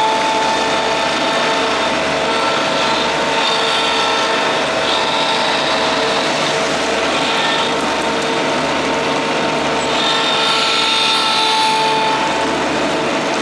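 Kubota D1105 three-cylinder diesel on a Madvac vacuum running steadily at a constant speed, a dense mechanical clatter with a steady whine over it.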